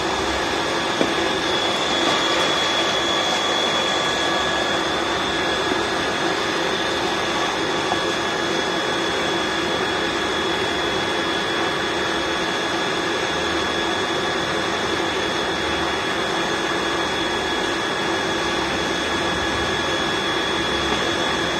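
A 0.5 HP electric water pump running steadily: an even mechanical hum with a few steady whining tones that neither rises nor falls.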